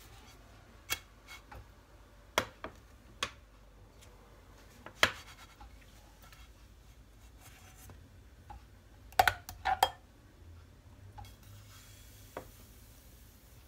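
Scattered clicks and knocks of cookware: a nonstick frying pan worked with a silicone spatula and moved on a glass-ceramic hob, and a ladle scooping batter from a glass bowl, with a quick cluster of sharper knocks about two-thirds of the way through. A faint hiss near the end as batter is poured into the pan.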